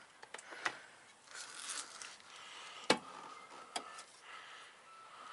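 Light metallic clicks and scrapes of hand tools and suspension hardware being worked on in a car's wheel well. There are two sharper clicks, about three seconds in and again nearly a second later.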